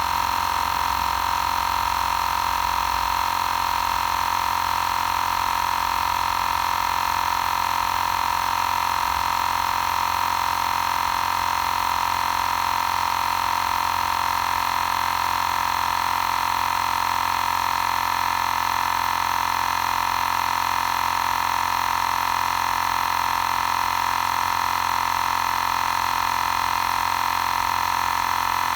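Xiaomi Portable Electric Air Compressor 2 running steadily as it pumps up a nearly flat spare tyre: an even, unchanging whine.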